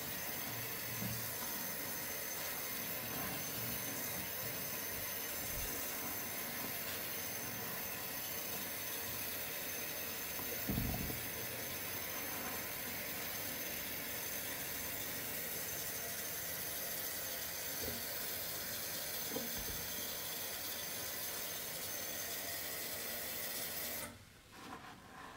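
Running tap water pouring onto soaked, foamy soap in a basin: a steady hiss that cuts off suddenly near the end. There is one brief low thump about halfway through.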